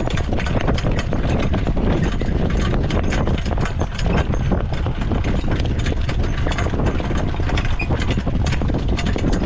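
Harness horse's hoofbeats at speed while it is driven in training, a quick run of hoof strikes over a steady low rumble.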